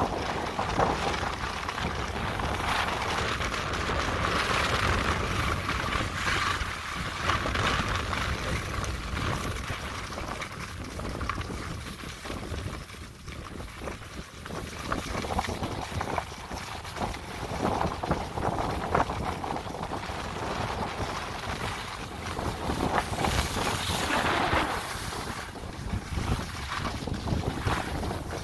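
Skis hissing and scraping over spring snow on a downhill run, swelling and fading with the turns, with wind rumbling on the microphone.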